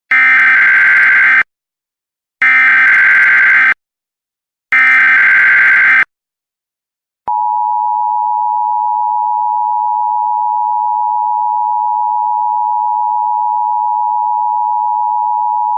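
Emergency Alert System signal: three harsh digital SAME data bursts of about a second and a half each, a second apart, then about seven seconds in the steady two-tone EAS attention signal begins and holds.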